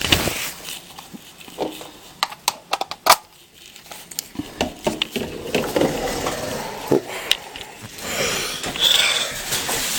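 A run of sharp clicks and knocks as things are moved about in a cupboard, the loudest about three seconds in, then rustling and crinkling of a paper tissue near the end.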